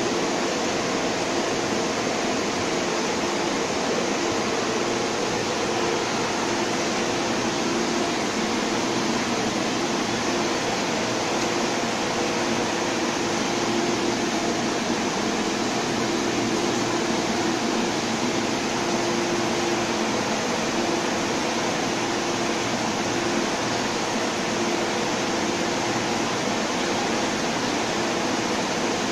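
Steady air-conditioning and ventilation hum with a hiss, on an underground metro platform where a train stands with its doors open. A few low steady tones sit beneath the hiss.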